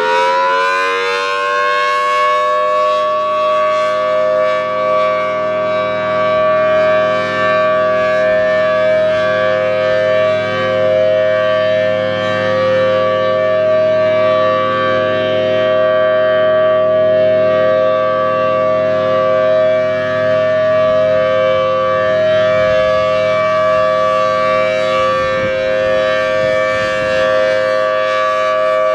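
Federal Signal Thunderbolt 1000T outdoor warning siren sounding a steady alert: it finishes winding up in pitch about a second in, then holds a loud, steady two-note chord, swelling a little in volume as the rotating head sweeps past.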